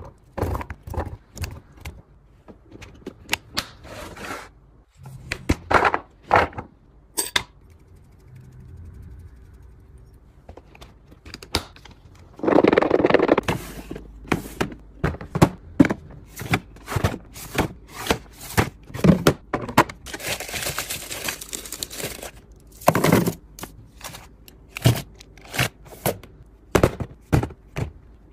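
Food being packed into clear containers: cucumber slices dropping into a glass dish, then grapes handled in a plastic fridge bin. It is heard as many sharp clicks, taps and knocks, with two longer rustling stretches about halfway and about two-thirds through.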